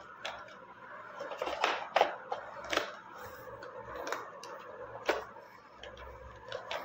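Headphone packaging being handled: irregular light clicks and taps with faint rustling.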